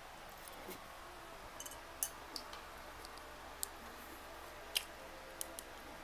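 Faint close-up chewing of a mouthful of food, with scattered short, sharp wet mouth clicks.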